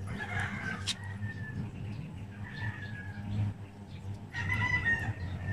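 An animal calling: several drawn-out high calls, the longest and loudest near the end, over a steady low hum.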